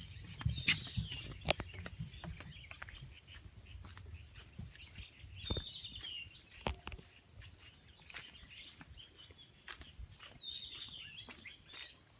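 Birds chirping and calling repeatedly in forest. Several sharp knocks come in the first two seconds, with a low rumble.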